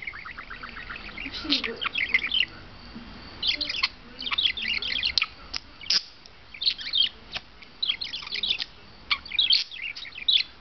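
Budgerigar chattering close up: bouts of rapid, high chirps and warbled notes about a second long, broken by short pauses.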